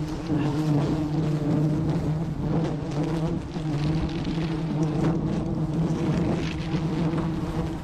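Honeybees buzzing in a steady low drone, with plastic bag rustling and crackling over the comb.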